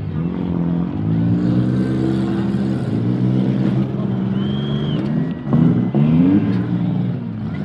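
Demolition derby cars' engines revving hard, several at once, their pitch rising and falling as the cars push and ram. A loud crash of metal on metal comes about five and a half seconds in.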